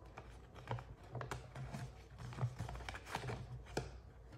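Light rustling and scattered clicks of paper money and envelopes being handled.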